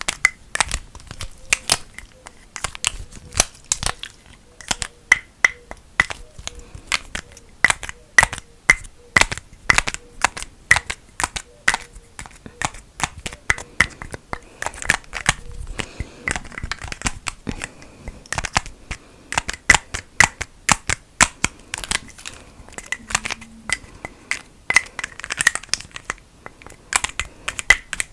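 A lid clicked and tapped: a long run of sharp, irregular clicks, several a second.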